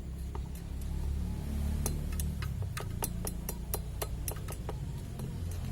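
Hand tools clicking and tapping on metal engine parts: a string of short, sharp metallic clicks at irregular spacing, several a second, over a steady low hum.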